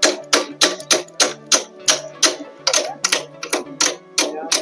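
Background music with a steady, fast clicking beat, about three or four beats a second, over a low bass line.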